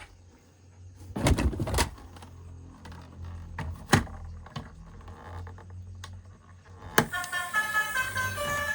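Knocks and rattles of plastic being handled, including a cluster of clattering knocks a second or so in and a sharp knock near the middle. Then a click about seven seconds in, and an electronic jingle of changing notes starts playing.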